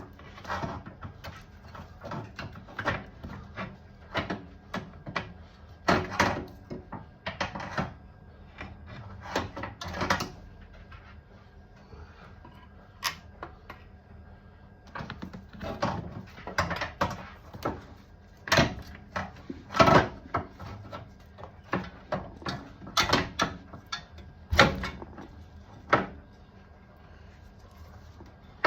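Irregular metal clanks and knocks of tools and suspension parts as a car's lower wishbone is worked into place, with a quieter spell in the middle and a few sharper strikes later on.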